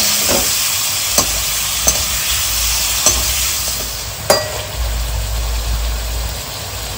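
Chicken pieces sizzling in hot oil in a stainless-steel kadhai, while a slotted metal spatula scrapes and clinks against the pan about five times in the first four and a half seconds. After that the stirring stops and the frying sizzles on a little quieter.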